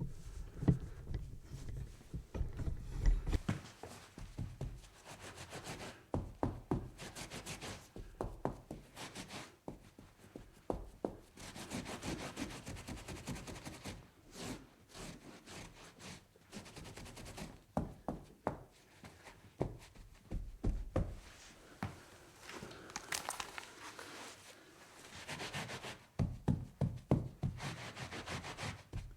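Wiping and scrubbing a tabletop: irregular rubbing and scraping strokes across the surface, broken by frequent light knocks and thunks.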